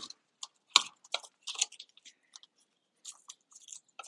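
Electrical wires being handled and bent in a switch box: a run of sharp crackly clicks and scrapes, heaviest in the first second and a half, with lighter ones about three seconds in.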